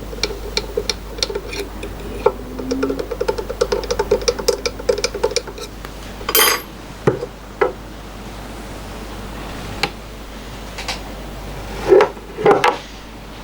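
Metal tools being handled on a workbench. A quick run of light clicking over a faint hum lasts about five seconds, then separate metallic clinks and knocks follow, the loudest a pair near the end.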